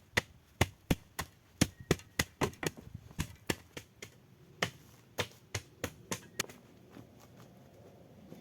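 A quick, irregular series of sharp knocks, about two to three a second, that stops about six and a half seconds in.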